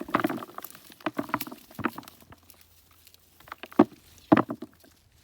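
Hands digging and scraping through dry potato-bed soil, with scattered rustling and short clicks. Two sharper snaps come close together about four seconds in.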